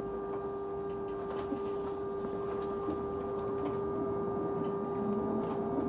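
A bus giving off a steady whine that holds one constant pitch without rising or falling. It sits over a low running rumble, with a few faint rattles.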